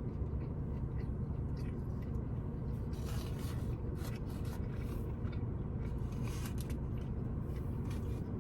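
A person chewing a mouthful of barbecued brisket, with a few soft wet mouth noises about three, four and six seconds in, over a steady low hum.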